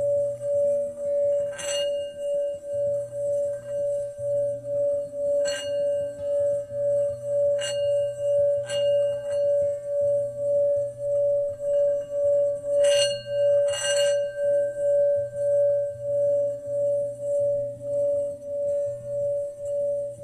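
Singing bowl ringing with one steady tone that pulses in loudness about twice a second, broken by six brief sharp clinks.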